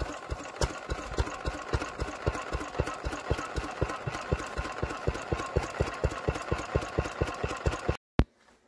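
A small vintage stationary engine running steadily with an even beat of firing strokes, a little over five a second. It cuts off abruptly about eight seconds in.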